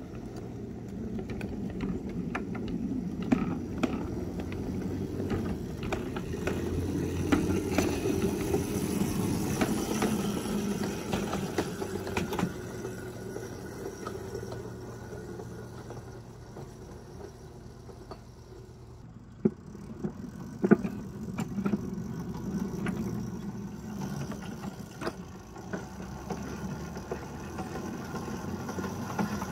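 Chain-driven electric ride-on miniature locomotive running along the track with a gondola car in tow: a steady low rumble and whir from the wheels and drive, with scattered sharp clicks and knocks. It swells a few seconds in and eases off around halfway, and the loudest knocks come about twenty seconds in.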